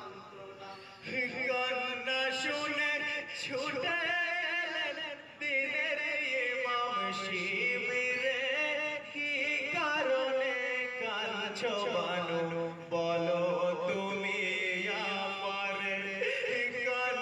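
A man's voice singing a marsiya, a Muharram lament chant, in a wavering, ornamented melody with long held notes. It gets louder about a second in.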